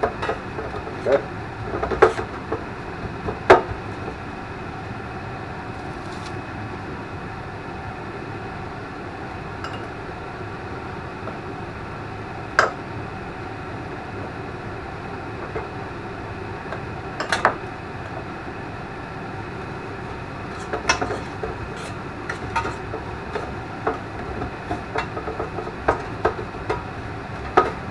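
Scattered light knocks and clinks as tomato slices and fingers tap against a stainless steel pan during hand breading, growing more frequent near the end, over a steady background hum.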